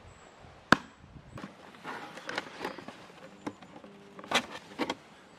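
A single sharp click a little under a second in, then cardboard flaps scraping, rubbing and flexing in short irregular strokes as a cardboard smoker box is opened by hand.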